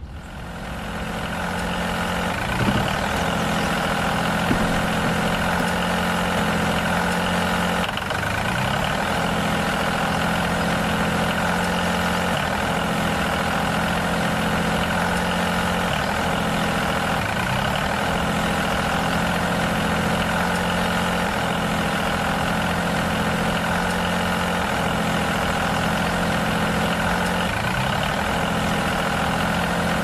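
Tractor engine running steadily at an idle-like pace, fading in over the first second or two, its low note dipping briefly every few seconds.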